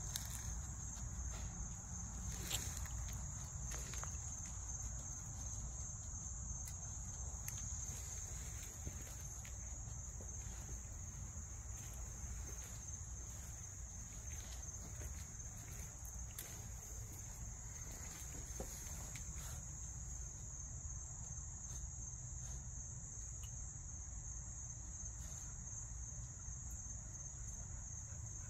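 Steady high-pitched chorus of night insects, an unbroken trill, with a low rumble underneath and scattered light taps and clicks in the first half.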